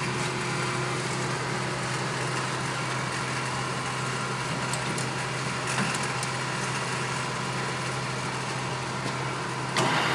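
Clausing Colchester Master 2500 engine lathe running steadily, its headstock gearing and spindle giving a steady hum and whir, here at about 770 RPM. The sound steps up in loudness just before the end.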